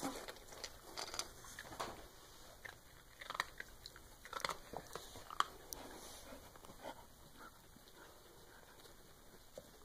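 Dog chewing dry kibble, a run of irregular crunches that grow sparser near the end.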